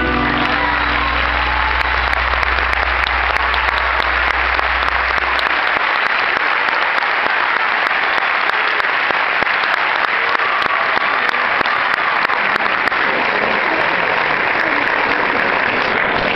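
Theatre concert audience applauding loudly and steadily as a song ends. A low tone from the stage sound system hangs on underneath and cuts off about five seconds in.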